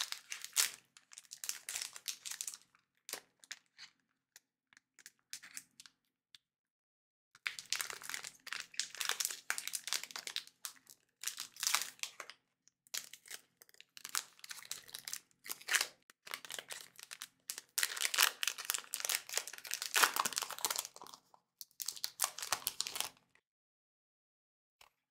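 Foil booster-pack wrapper of a Pokémon card pack crinkling and tearing as it is pulled open by hand, in irregular rustling bursts. The crinkling is sparse for a few seconds, then dense from about seven seconds in until shortly before the end.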